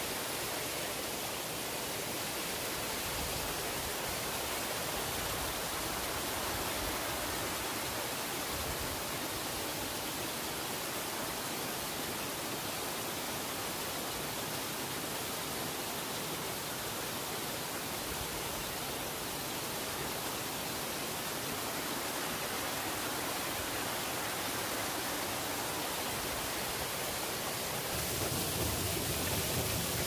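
Waterfall pouring over rocks into a pool: a steady, full rushing of falling water that grows louder and deeper about two seconds before the end.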